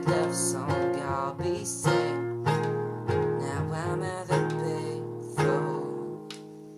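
Acoustic guitar strumming chords, with a sung melody line over the first couple of seconds. A last chord struck about five and a half seconds in rings out and fades away.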